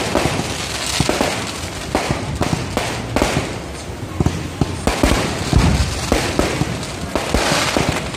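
Aerial fireworks going off: a dense, irregular run of bangs and crackling.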